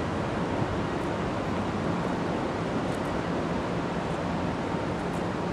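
Steady outdoor city background noise: an even rushing hiss with a faint low hum underneath.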